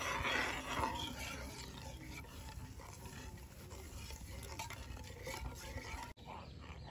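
Metal slotted spoon stirring a thin sauce in a nonstick pan: soft swishing with a few faint clicks of the spoon against the pan.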